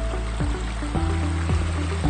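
Background music with a steady electronic beat: a kick drum about twice a second under held synth tones and a bass line.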